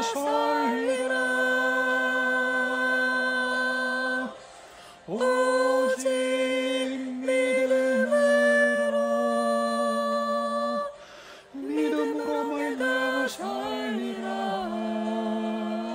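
A voice singing the refrain of a Korean worship song in long held notes, in three phrases broken by short pauses about four and eleven seconds in.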